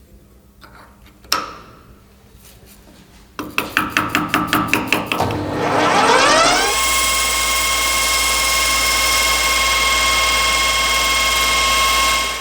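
Workshop power tool: a sharp click, then a run of quick rattling knocks, then an electric motor spinning up with a rising whine and running at a steady speed.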